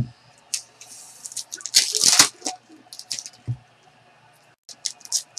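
Trading cards being handled, slid and set down on a table: short dry clicks and rustles, busiest about two seconds in.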